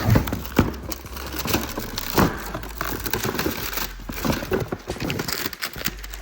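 Packaging crinkling and rustling as a wiring harness is unwrapped, with irregular knocks and handling clatter.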